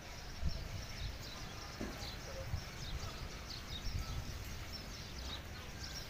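Outdoor ambience: scattered faint bird chirps over an uneven low rumble on the microphone.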